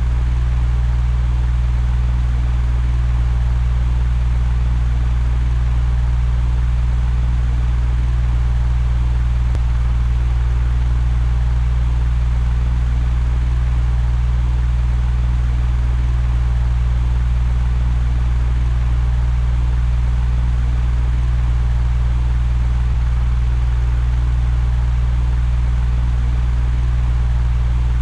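Electric fan running steadily: a deep, even hum with an airy rush of moving air over it, unchanging throughout.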